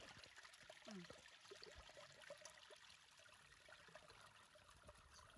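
Faint trickling of water at the edge of a flooded rice field, nearly silent otherwise, with a short soft falling call about a second in.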